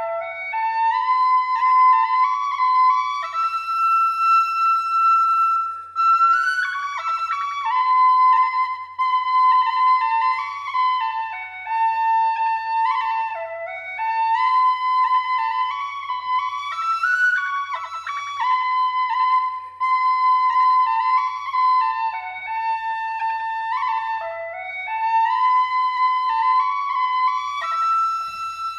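Background music: a solo flute or whistle-like wind instrument playing a slow melody of held and stepping notes.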